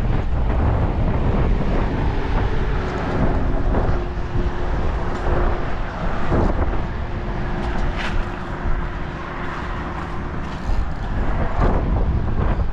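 Wind buffeting the microphone. A steady hum joins about two seconds in and fades out near the end, with a few sharp clicks.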